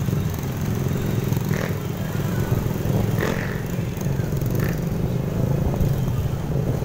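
Motorcycle engines running steadily at low speed, heard from one of the riding bikes as a low, even drone.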